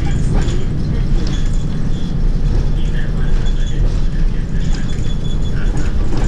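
Steady low rumble of a city bus driving, heard from inside the bus near the front: engine and road noise.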